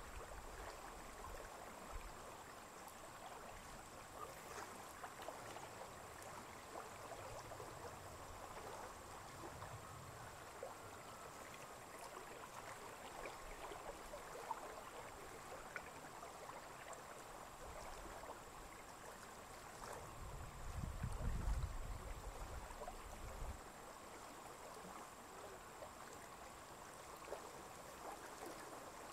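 Faint water lapping softly at a lake shore, with a gust of wind buffeting the microphone about twenty seconds in.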